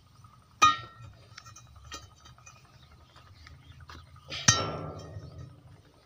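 Hand tamper, a steel pole with a square foot, pounding a bed of broken brick and gravel: two hard strikes about four seconds apart, each with a short metallic ring, and a lighter knock between them. A brief rattle of loose stones follows the second strike.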